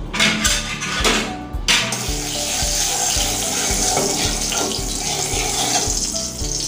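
Hot mustard oil sizzling in a kadai while a spatula stirs it, with a few scrapes near the start; the sizzle thickens into a steady hiss after about two seconds as the oil comes up to frying heat.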